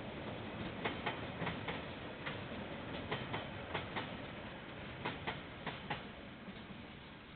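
Train wheels clicking over rail joints as wagons roll by, the clicks mostly coming in close pairs over a steady running noise that fades away.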